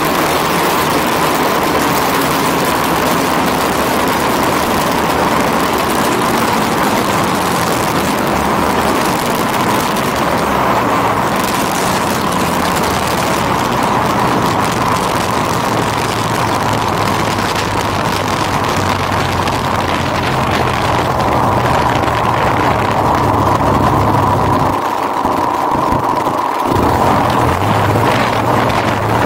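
Twin DLE-55 single-cylinder two-stroke gasoline engines of a large RC P-38 model, heard from a camera taped to the airframe. They run steadily under heavy wind rush through the landing approach and rollout on grass. The low engine note briefly drops out about 25 seconds in.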